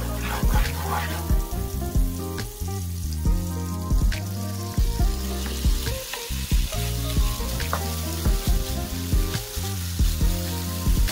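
Mayonnaise sizzling in a hot nonstick frying pan while a wooden spatula scrapes and stirs it. Raw chicken pieces are tipped in partway through and sizzle as they are stirred. Background music plays throughout.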